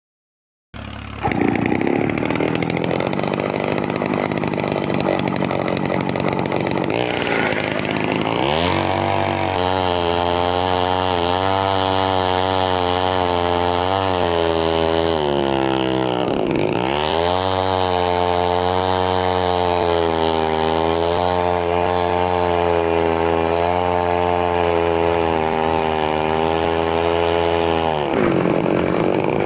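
Chainsaw engine starting suddenly about a second in and running at high revs, its pitch wavering under load. The revs dip sharply and recover about halfway through and again near the end.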